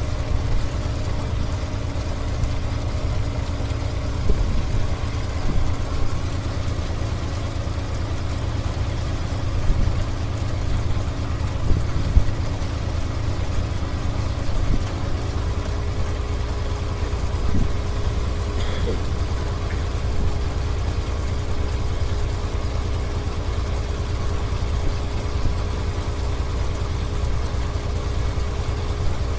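Rice combine harvester's diesel engine running steadily while its unloading auger pours paddy into a lorry, a deep continuous rumble with a hum that shifts in pitch about halfway through, and a few light knocks.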